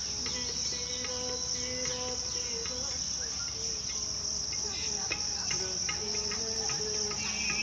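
Steady high-pitched chorus of insects in the trees, a continuous shrill hum with no break.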